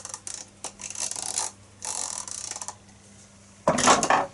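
The sight-adjustment clicker on a homemade catapult rifle being turned: three short runs of rapid ratcheting clicks, then a louder knock from handling near the end.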